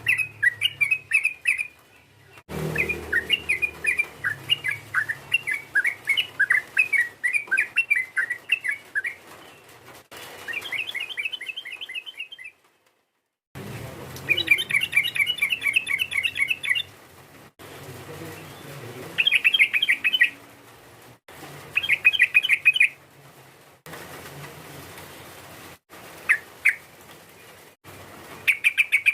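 Yellow-vented bulbul (trucukan) song: rapid bubbly chattering phrases repeated in bursts, with abrupt breaks between them. It is a lure call meant to set other bulbuls singing.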